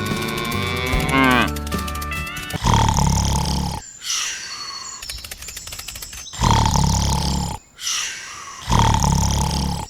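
Music with edited-in sound effects: a pitched musical passage with a gliding tone, then a run of loud, noisy blasts about a second long, repeated several times with short gaps.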